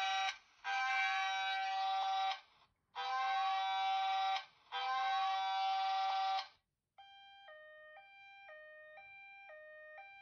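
Unihertz 8849 Tank Mini phone's loudspeaker playing preview tones as they are picked from a list. First comes a loud electronic alarm tone four times, about a second and a half each, each with a quick rising slide at its start. From about seven seconds in, a quieter two-note siren alternates high and low about twice a second.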